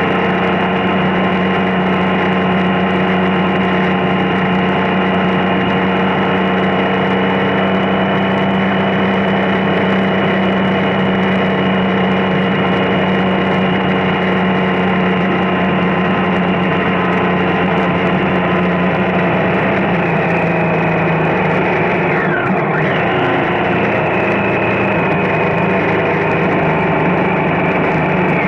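Triumph Street Triple's three-cylinder engine cruising at a steady speed, a loud, even engine note. About twenty seconds in the note drops a little lower.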